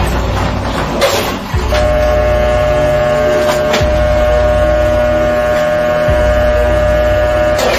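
Background music: deep bass notes that change about every two seconds under a long held synth tone, with a few sharp percussive hits.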